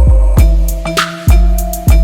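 Background music with a steady beat: heavy bass-drum hits about twice a second under sharp percussion and sustained pitched notes.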